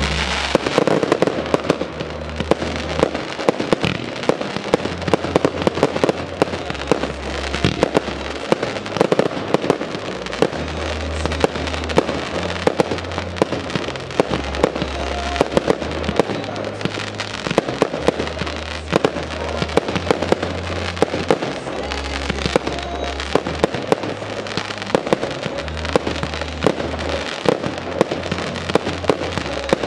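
Fireworks display: a rapid, continuous run of shell bursts, bangs and crackle, played over music with a deep bass line.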